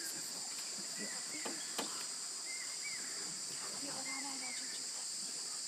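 Insects droning steadily and shrilly in the forest, with a few short chirps scattered over the drone and one sharp click about two seconds in.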